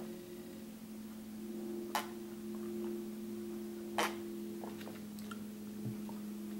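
Leftover milk being drunk from a plastic cereal bowl: two sharp gulping clicks about two seconds apart, with a few fainter ones later, over a steady background hum.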